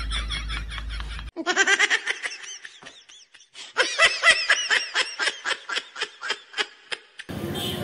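High-pitched laughter sound effect dubbed over the scene: two runs of rapid, evenly spaced "ha-ha" pulses with a short break between them. The street ambience drops out while it plays and cuts back in near the end.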